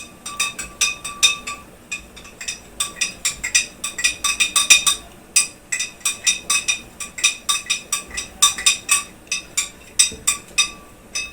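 A spoon clinking rapidly against the side of a bowl while stirring salt into milk to dissolve it. Several ringing clinks a second, with brief pauses about two and five seconds in.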